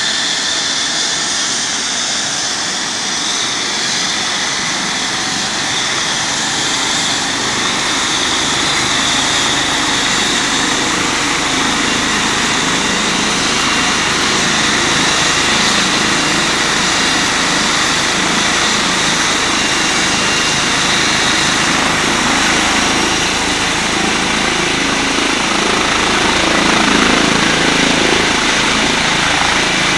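ADAC rescue helicopter's turbine engines running with a steady high whine while it stands on the ground, the rotor noise building and growing slowly louder as it readies for lift-off; a thin very high whine rises slightly in pitch near the end.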